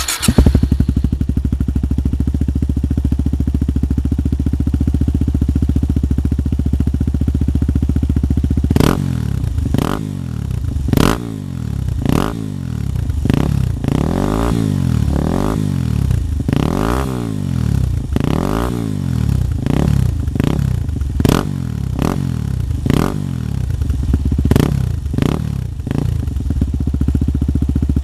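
Yamaha WR250X's 250 cc single-cylinder four-stroke engine starting, then running through an N Project twin slip-on exhaust with the baffles removed, so it is loud. It idles steadily for about nine seconds, then is blipped in quick throttle revs about once a second for some fifteen seconds, then settles back to idle near the end.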